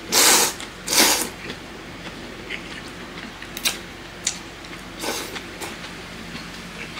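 Thick ramen noodles slurped loudly in two quick slurps, then a third about five seconds in, with small clicks of chopsticks and chewing between.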